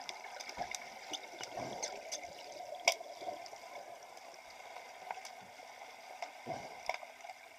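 Muffled underwater noise in a swimming pool with bubbling and a steady hiss, broken by scattered sharp clicks of underwater hockey sticks and puck on the tiled floor, one louder about three seconds in.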